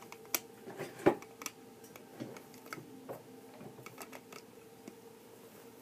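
Plastic Lego bricks clicking and knocking as pieces are handled and pressed back into place, with one sharper click about a second in. A faint steady hum runs underneath.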